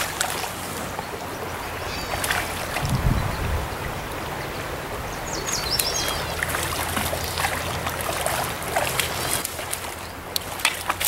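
Hooked brook trout splashing at the surface of a shallow stream in several separate splashes, over the steady rush of flowing water.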